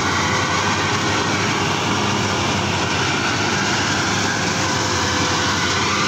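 Bimo rice combine harvester's engine running steadily close by, an even drone that holds the same pace throughout.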